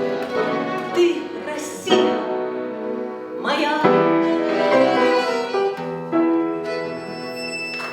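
Instrumental close of a romance, with piano and violin playing and a final chord held near the end.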